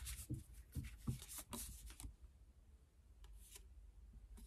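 Tarot cards being handled and shuffled, quietly: a run of short card rustles and clicks in the first two seconds, then one brief brush about three seconds in.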